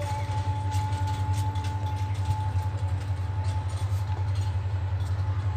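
Diesel-hauled passenger train running past: a steady low engine rumble with a slight regular pulse, light clicks, and a thin steady tone that fades out about two seconds in.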